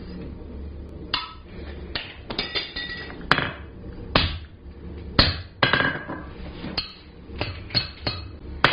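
Hammer blows on a steel punch driving holes through hot 3/8-inch square bar on the anvil: about a dozen sharp, irregularly spaced ringing strikes, starting about a second in.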